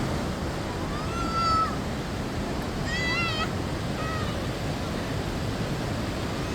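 Three short, high-pitched calls, each bending in pitch, over a steady rushing noise. The second call, about three seconds in, is the loudest.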